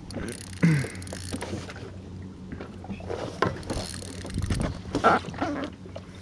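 Handling noise on an inflatable boat during a fight with a tuna on a spinning rod: irregular knocks and rubs over a steady low hum. The sharpest knock comes about two-thirds of a second in.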